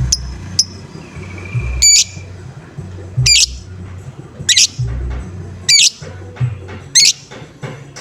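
Lovebird giving loud, harsh, squawky 'ngoek' calls, five of them about a second apart, after a couple of short chirps at the start. Background music with a low bass beat plays underneath.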